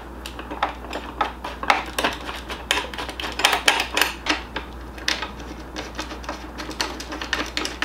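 Small irregular clicks and taps of screws being threaded by hand into a metal spoiler mounting bracket against a motorcycle's fairing frame, over a steady low hum.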